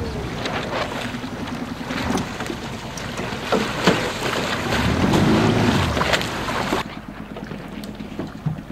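Wind buffeting the microphone in gusts over water rushing and splashing, with scattered sharp ticks; the noise drops off abruptly near the end.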